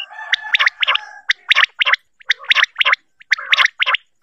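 Quail (batair) calling: a rapid series of short, sharp notes, often in pairs, repeated without pause. It is a recorded call played to lure quail for catching.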